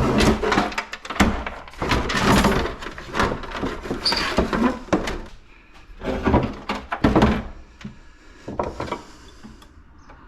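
Irregular clattering knocks and scrapes of metal and plastic parts being pulled apart and set down by hand while an air filter unit is dismantled for scrap, busiest in the first half and thinning out towards the end.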